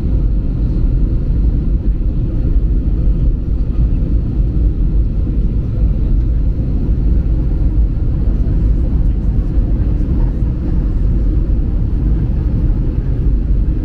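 Steady low rumble of a vehicle in motion, even and unbroken throughout.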